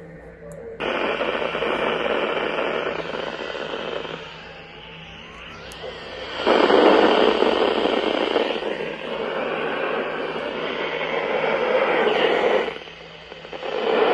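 Weather radio receiver hissing with static on a weak signal, in long loud stretches that drop away briefly about four seconds in and again near the end.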